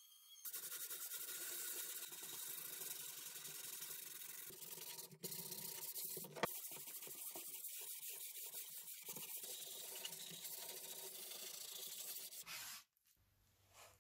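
Small electric power tool running steadily, a hiss over a faint motor hum, with a single click midway; it cuts off near the end.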